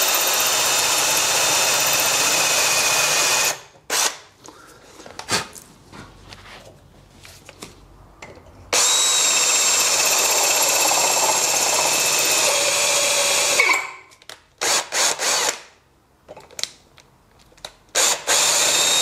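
Electric drill drilling out a stripped M6 stud hole in an aluminium cylinder head, nearly through: the motor whines in two long runs of a few seconds each with a pause between, then a few short bursts near the end.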